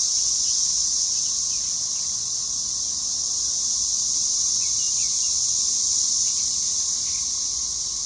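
Chorus of cicadas in the trees: a steady, high-pitched drone, deafening up close.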